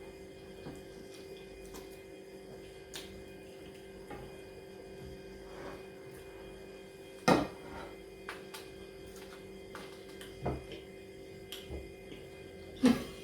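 Quiet eating sounds: scattered soft clicks and knocks of people eating from plates, over a steady hum. The loudest knocks come about seven seconds in and just before the end.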